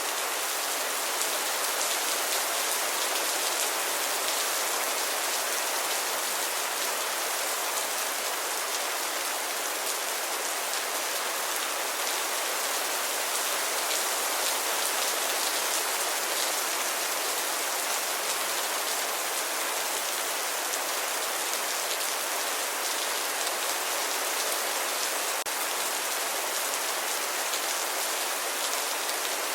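Steady rainfall, an even hiss of many fine drops pattering on surfaces, with no thunder or change in intensity.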